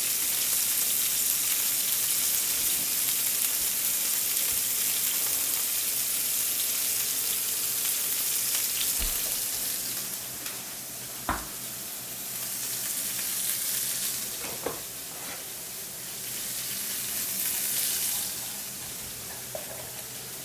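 Marinated chicken breasts searing in olive oil in a heavy-bottomed stainless steel pan: a steady sizzle with the herbs and garlic caramelizing. It eases off about halfway and swells again twice, with a couple of light knocks in the second half.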